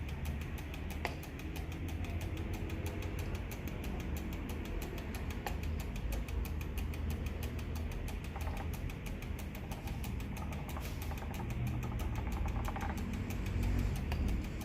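Mechanical timer on a Getra electric waffle maker ticking rapidly and evenly as it runs down, over a low steady hum, with a couple of light clicks.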